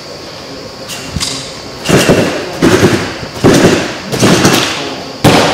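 A gymnast's hands and feet striking a sprung tumbling track (fast track) as he bounces forward along it: a run of heavy thuds, five loud ones roughly three-quarters of a second apart, beginning about two seconds in.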